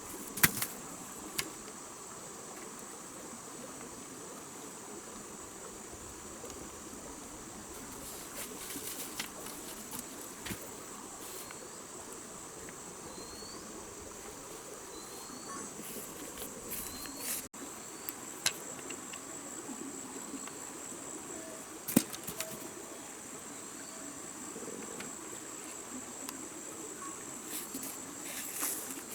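Rainforest insects, such as crickets, keeping up a steady high-pitched drone, with a few sharp knocks or clicks scattered through it, the loudest about half a second in and again around two-thirds of the way through.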